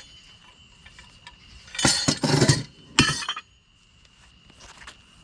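Small pieces of scrap metal and wire clinking and clattering as they are dropped onto a scrap pile: a cluster of clinks about two seconds in and one more a second later.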